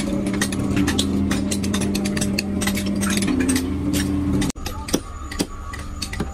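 A machine running with a steady hum under rapid metallic clicking and clinking. About four and a half seconds in, it cuts off to a quieter background with a steady high tone and a few scattered knocks.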